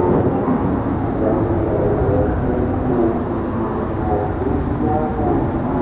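Steady roar of a heavy rain shower, with a murmur of many voices mixed in.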